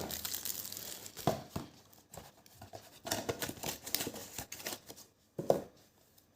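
A trading-card box's packaging being handled and opened by hand: irregular crinkling and tearing, with a sharper knock about five and a half seconds in.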